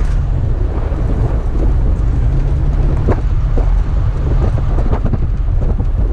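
Toyota FJ Cruiser driving over a rough, deep-sand track: a steady low rumble with scattered knocks and rattles.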